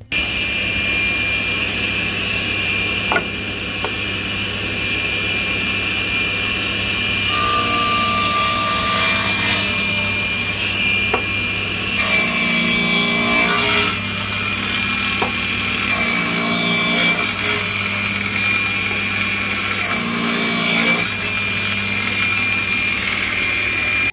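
Table saw running steadily, its blade crosscutting a wooden board pushed against the miter gauge about four times, each cut lasting a couple of seconds.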